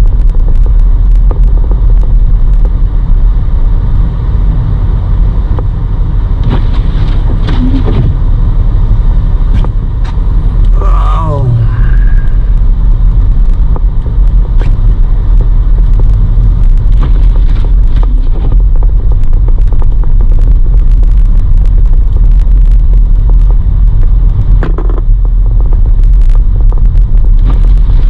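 Steady, loud low rumble of road and engine noise inside a car's cabin while driving on snow-covered roads, with a few scattered knocks and clicks and a brief falling tone about a third of the way through.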